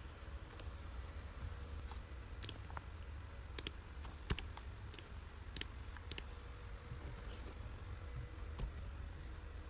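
Scattered sharp clicks from computer input while working at the desk, about eight spread over several seconds, over a low steady hum.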